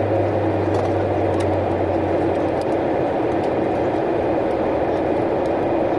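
Steady rushing cabin noise of an airliner, the Airbus A320neo's engine and airflow noise heard from inside, with a low hum that fades out about two seconds in.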